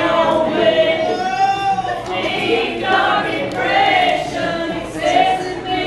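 A group of women singing together.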